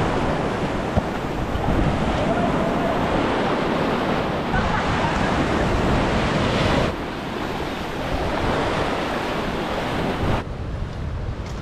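Surf breaking and washing up a sandy beach, with wind buffeting the microphone, and a single sharp knock about a second in.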